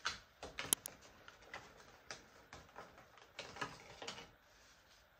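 Faint, scattered clicks and crinkles of plastic packaging being handled, as a card is worked out of its clear plastic blister tray.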